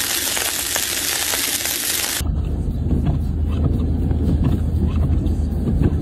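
A steady hiss for about the first two seconds, then a sudden change to the low, steady rumble of a vehicle driving along a snow-covered road, engine and tyres on snow.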